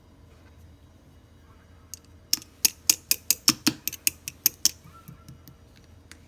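A quick run of about a dozen sharp clicks, around five a second, followed by a few fainter ones.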